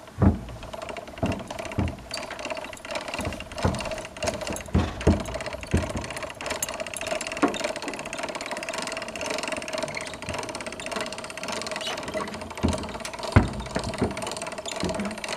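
An engine running steadily, with a string of sharp knocks and clanks from metal gear being handled.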